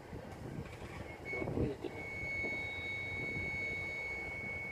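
A homemade amplifier's mic echo/reverb effect rings with a high, steady whistle at one pitch with fainter overtones above it. The whistle starts with a short blip, then holds from about two seconds in, after a few handling knocks. This is the ringing ('denging') the builder blames on the effect being too strong even when turned up only slightly, which he plans to tame with a 10k resistor on the effect's input.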